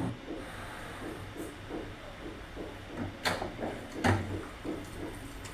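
Air fryer running with a steady hum, and two sharp clicks about three and four seconds in, typical of the basket drawer being handled.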